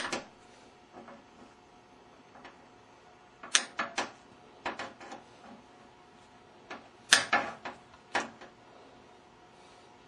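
Wire cutters snipping through the washer's motor harness wires: a string of sharp snips and clicks in small clusters, a few seconds apart.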